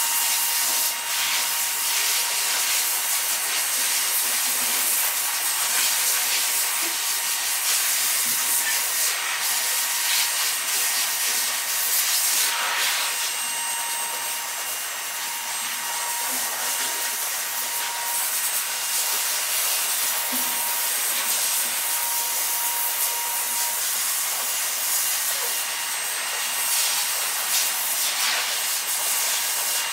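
A steady airy hiss, with light snipping of grooming scissors as they trim a poodle's head fur.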